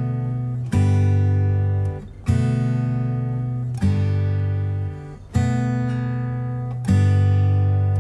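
Background music: a sequence of sustained chords, a new one struck about every second and a half, each ringing and fading before the next.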